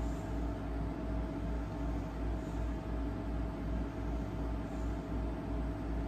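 A steady low mechanical hum with a rumble that throbs about three times a second, under a faint constant whine.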